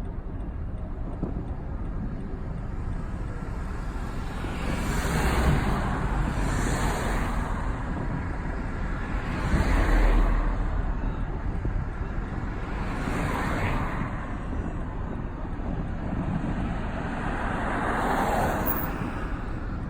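Road traffic: a steady low rumble with several vehicles passing by one after another, each a swell of noise lasting a second or two.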